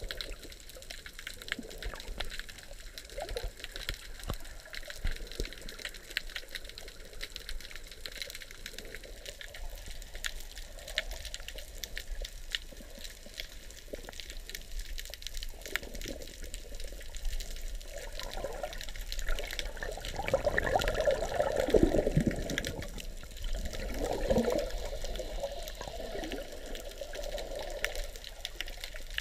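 Underwater sound through an action camera's waterproof housing during a freedive: a steady crackle of fine clicks over muffled moving water. About two-thirds of the way in, the water noise swells louder twice as the camera comes up near the surface beside a tower leg.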